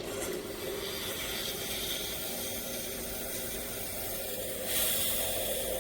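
Water pouring steadily, filling a container. It turns brighter and hissier for about a second near the end.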